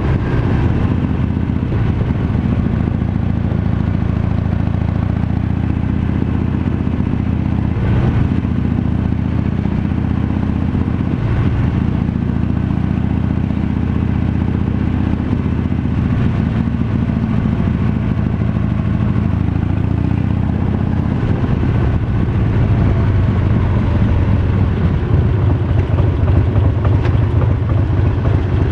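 Harley-Davidson Night Train's Twin Cam 88B V-twin engine running under way at low road speed, its note rising and falling a little with the throttle and growing louder near the end. A few brief knocks are heard along the way.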